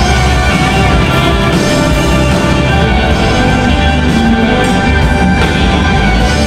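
Rock band playing live: electric guitars, bass and drum kit, loud and continuous.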